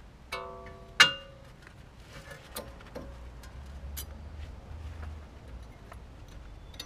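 New brake pad's steel backing plate clinking and knocking against the brake caliper bracket as it is worked into place: a ringing metallic tap, then a sharp loud clack about a second in, followed by a few lighter clicks.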